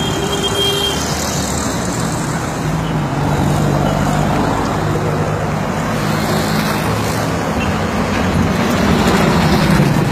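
Steady road traffic noise from cars and trucks passing on a busy road, with an engine hum that grows louder near the end as a vehicle passes.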